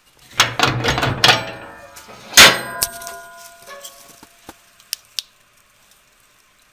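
Steel firebox door of a wood-fired boiler being unlatched and opened: the latch handle rattles and clangs for about two seconds, then one loud metallic clang about two and a half seconds in that leaves a ringing tone, followed by a few faint clicks.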